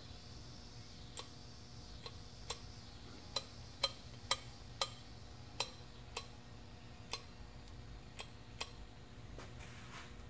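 Pump-action oil can clicking about a dozen times at an uneven pace, roughly one or two clicks a second, as it squirts oil onto the valve lifters before the camshafts go in.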